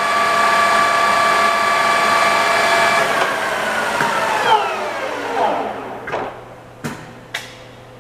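Takisawa TSL-800 lathe running with a steady multi-tone gear whine, then switched off about three seconds in, the whine falling in pitch as the spindle and gears coast down. Three short clicks near the end.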